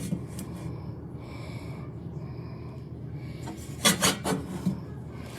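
Stainless steel whistling stovetop kettle heating water: a steady low rumble with a hiss. A short louder rattling burst comes about four seconds in.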